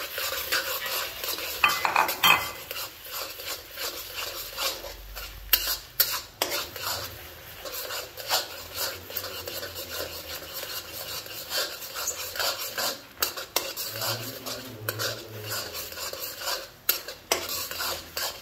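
A spatula stirring and scraping in a metal pan, with frequent sharp clinks of metal on metal. Under it runs a light sizzle from garlic frying in oil.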